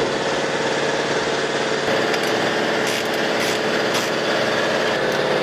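A motor running steadily at an even pitch, with a few sharp clicks or knocks over it.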